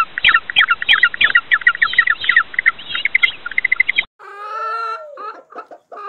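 Rapid high bird chirps, several a second, that cut off suddenly about four seconds in. Chickens clucking and calling follow.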